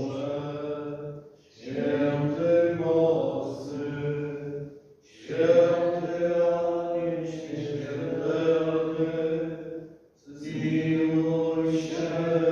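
Slow chant-like hymn sung by a congregation in a church, in long held phrases broken by three short pauses for breath.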